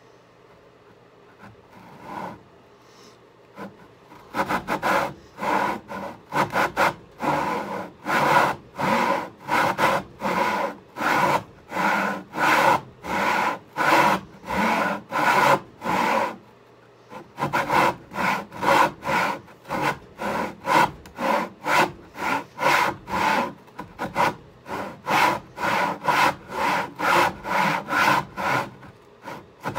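Hand saw cutting through a poplar board in steady back-and-forth strokes, about two a second. The sawing starts about four seconds in and pauses briefly around the middle.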